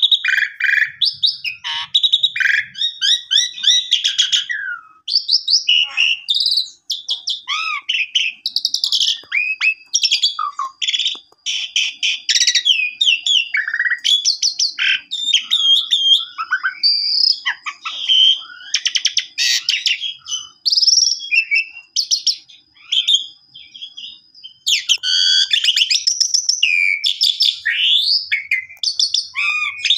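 Asian pied starling singing a long, varied song packed with mimicked phrases: quick chatters, rising and falling whistles and sharp notes in close succession. Through the middle it holds a thin, steady high whistle for several seconds.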